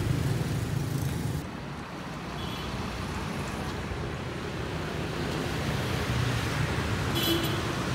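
Steady street traffic rumble from passing motorbikes and cars, with two brief faint high beeps a few seconds apart.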